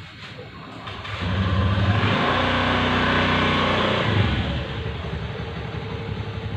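An engine running, growing louder about a second in and easing off after about four and a half seconds.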